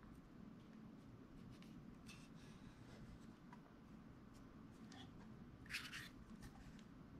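Faint handling noise from a Sigma 35mm F1.4 DG lens being turned in the hands: light rubbing and small ticks, with one brief louder scrape near the end.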